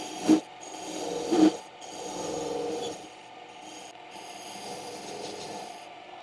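Small bench lathe running while its cutting tool scrapes across the unmachined outer face of a cast pulley. There are two brief louder scrapes in the first second and a half and a longer one around two to three seconds in, where the out-of-true casting meets the tool. The lathe stops at the very end.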